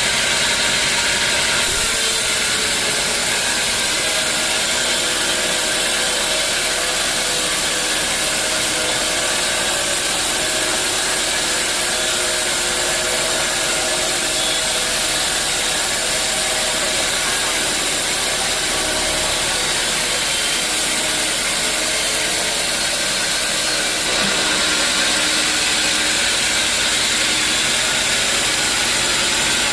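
Sawmill saw cutting through a teak log: a loud, steady hiss of the blade in the wood over the running machinery. The sound changes about two seconds in and again about 24 seconds in, when the machine's lower hum comes through more clearly.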